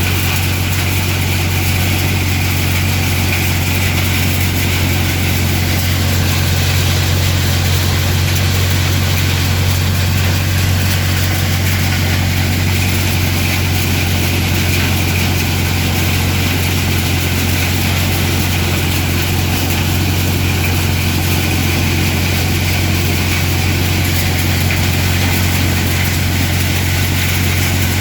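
Siberian pine cone processing machine running steadily with a constant low hum.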